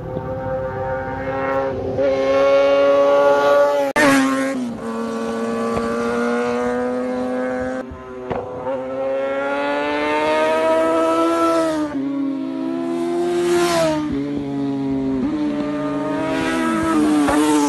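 Motorcycle engine revving hard through the gears, its pitch climbing and dropping again and again, with sudden breaks about every four seconds.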